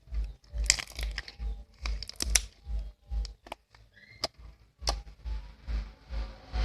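Slime being squeezed and worked by hand, giving scattered crackling and popping clicks, over background music with a steady beat.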